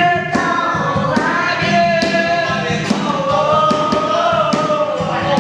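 Several voices singing a song together in long, drawn-out notes over a steady knocking beat.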